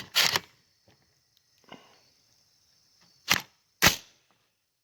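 American Tactical AR-15 being worked by hand: sharp metallic clacks of the charging handle and bolt as the bolt is opened to get a round to feed. Two clacks come at the start and two more about three and a half seconds in.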